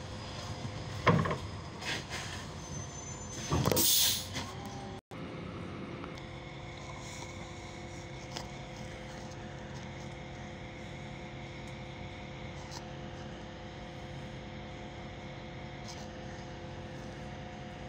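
Solaris Urbino 18 III articulated bus heard from inside the cabin: a sharp knock about a second in and a loud burst of compressed-air hiss around four seconds in. After a brief dropout, a steady cabin hum with even engine tones follows.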